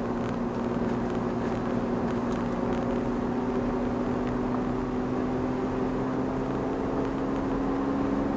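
Car engine and road noise heard from inside the cabin while driving. The engine's steady hum rises slowly in pitch as the car gathers speed.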